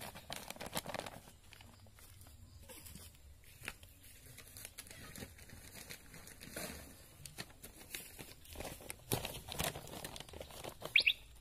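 Black plastic polybags crinkling and rustling in irregular bursts as the soil in them is pressed and handled. A short high chirp comes near the end.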